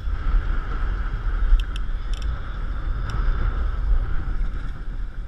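Wind and water noise aboard a small open boat in choppy water: a steady low rumble of wind buffeting the camera microphone under a rushing hiss. A few short clicks sound in the middle.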